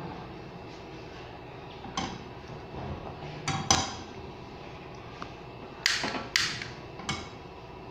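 About six sharp clicks and knocks on a gas stove as a nonstick frying pan is shifted on the metal grate and the burner is lit. The loudest knock comes a little before halfway, and two more come close together after the middle.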